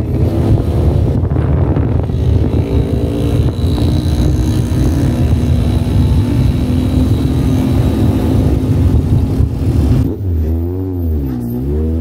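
Motor vehicle engine running steadily under way. About ten seconds in, its pitch falls and then climbs again as it slows and speeds back up.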